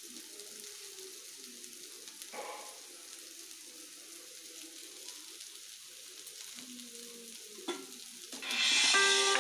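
Boiled noodles and vegetables sizzling in a frying pan as they are stirred, with a couple of utensil knocks against the pan. Plucked-string background music comes in loudly near the end.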